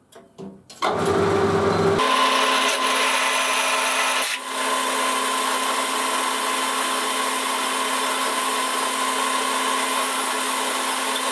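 Boxford lathe running, its lead screw turning while a wire brush is held to the thread to clean it. A lower run-up about a second in gives way, about two seconds in, to a loud steady hum and whine under a bright scratchy hiss.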